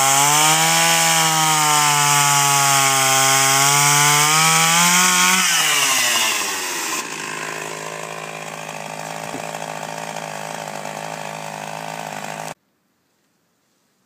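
Petrol chainsaw cutting through a log at full throttle, then let off about five and a half seconds in, its engine speed falling away to a steady idle. The sound cuts off abruptly about a second and a half before the end.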